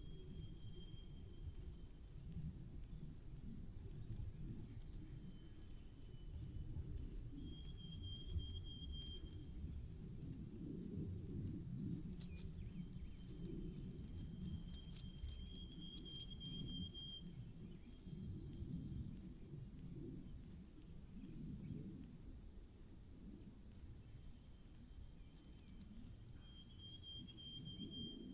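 A small bird's thin, high chirps, each a quick downward sweep, repeated steadily at about one and a half a second. A faint steady high whine comes and goes over a constant low rumble.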